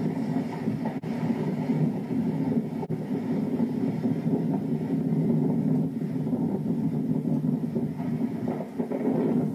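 Steady rumble of a heritage train's carriages running slowly along the track.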